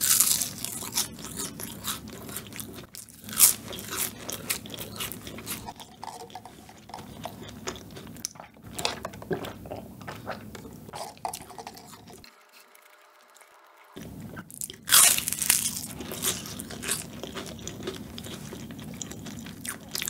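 Close-up crunching of flaky pastry tart shells being bitten and chewed. There is a loud bite at the start and another about 15 seconds in, with a short near-silent pause shortly before the second.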